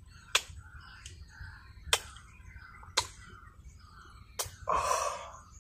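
Four sharp lip-smacking kisses, about a second apart, planted on a freshly caught giant snakehead (toman), followed near the end by a short breathy rush.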